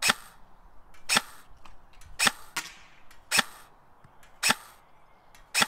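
Custom KWA KM4 airsoft electric rifle (AEG) firing single shots at a steady pace, six sharp cracks about a second apart.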